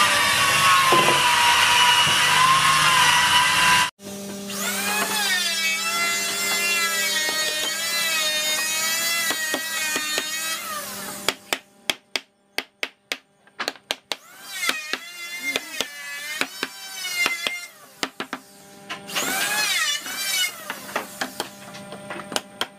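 A power tool runs with a wavering whine that cuts off abruptly about four seconds in and returns in shorter spells. From about halfway, a hammer taps repeatedly on wood, knocking the raised panels into the door frame.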